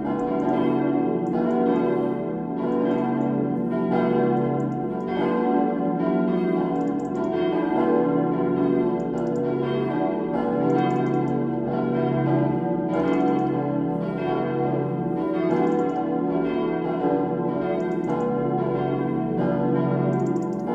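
Full peal of four 1922 cast-steel church bells, tuned B, D, E and F sharp, swinging together with overlapping strokes and a dense ringing hum. The tuning is unfavourable, with the low B bell standing out clearly, and the D bell's clapper has long struck mostly on one side only.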